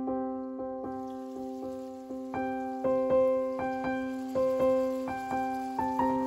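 Background piano music: a gentle piece of single notes struck a couple of times a second over a held low note.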